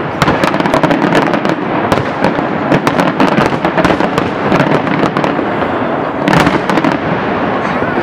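Fireworks display: a dense barrage of aerial shells bursting, with many rapid overlapping bangs and crackles, and a louder burst about six seconds in.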